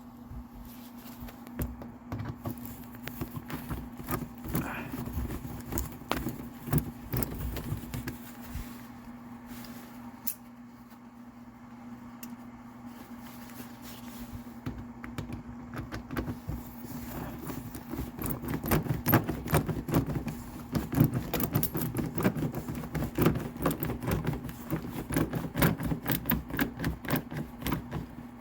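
Hand tools and small metal parts clicking and rattling, scattered at first and then in a fast, louder clatter over the second half, over a steady low hum.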